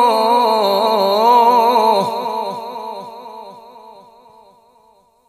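A man's voice reciting the Quran, drawing out a long melismatic note with a wavering, ornamented pitch on the word "إلى", then fading away over the last three seconds.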